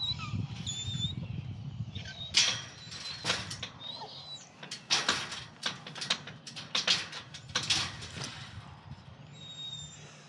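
Metal-framed wire-mesh gate rattling and clanking as a dog jumps up and paws against it. A quick series of sharp knocks starts about two seconds in and stops near the end.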